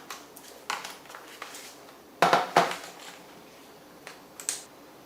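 A few sharp clicks and knocks of hard laptop parts and tools being handled on a work surface. The loudest pair comes a little over two seconds in.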